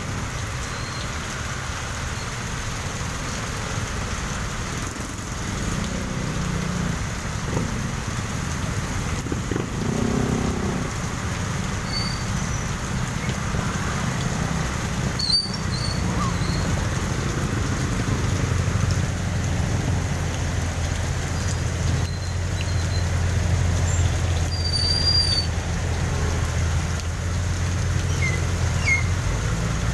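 Heavy rain pouring onto a wet road as cars and motorcycles pass, engines running and tyres hissing through standing water. A steadier low engine hum sets in about halfway through, and a few brief high squeaks come and go.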